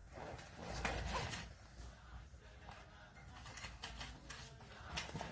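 A zipper being pulled open around a small fabric carry case, loudest about a second in, followed by rustling and a few light clicks as the case is opened and handled.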